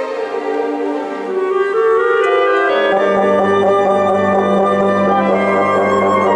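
Chamber orchestra playing, strings with winds and French horns. About three seconds in, low sustained notes enter and the sound grows fuller.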